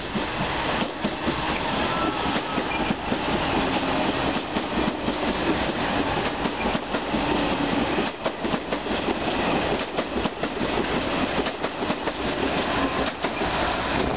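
ČD class 680 Pendolino electric tilting train pulling out and running close past, a steady rush of rolling noise with the wheels clattering over rail joints and points.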